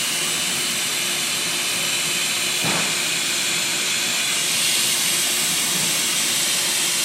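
Steady hiss of a hot-gas plastic welding gun blowing zero air (purified compressed air) in place of nitrogen during a weld.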